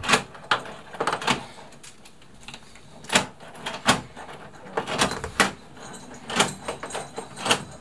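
The freshly repaired latch of a metal entrance-door lock clicking and knocking as the door is swung to and from the frame and its lever handle is worked: about a dozen sharp metallic clicks at irregular intervals, several in quick pairs. This tests whether the latch bolt now catches and the door shuts properly.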